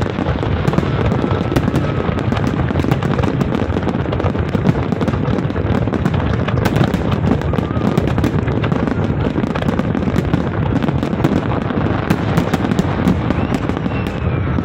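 Large fireworks display going off continuously: a dense barrage of shell bursts and crackling, with many sharp cracks throughout.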